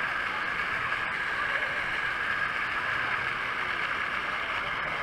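Steady rushing of pool water, with faint distant voices.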